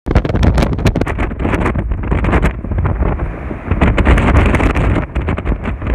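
Storm wind blasting the phone's microphone: loud, uneven gusts of deep rumbling buffeting with crackling bursts.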